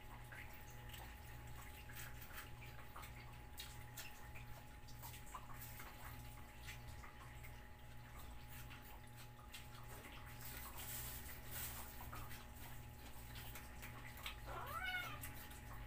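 A cat meows once near the end, a short call that rises and falls in pitch, over a low steady hum and faint scattered clicks.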